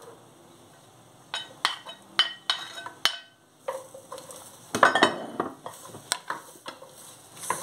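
Wooden spatula scraping bell pepper strips off a ceramic plate into a clay cazuela, then stirring the vegetables in the pot: a run of sharp knocks, clicks and scrapes of wood on plate and clay, starting about a second and a half in.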